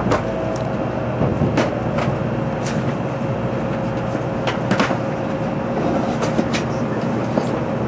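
Running noise heard inside the cabin of an N700 series Shinkansen slowing on its approach to the terminus: a steady rumble with a steady tone held underneath, broken by irregular sharp clicks from the wheels on the track.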